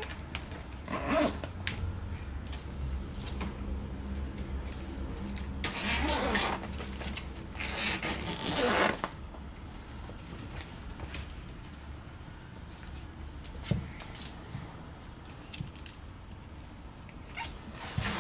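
Cat hissing in several short bursts, a defensive warning from a cat stressed and upset after being taken for its vaccinations.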